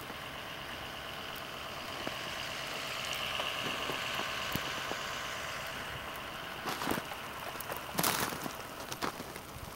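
Steady outdoor hiss, then footsteps crunching in fresh snow: a few short crunches in the last few seconds.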